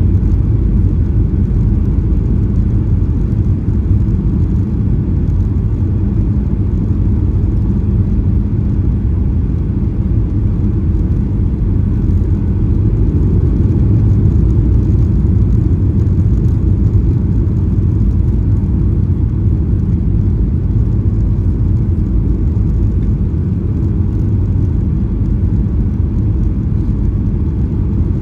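Steady low rumble of CFM56-7B jet engines and rushing air inside the cabin of a Boeing 737-800 on approach to landing, with its flaps extended.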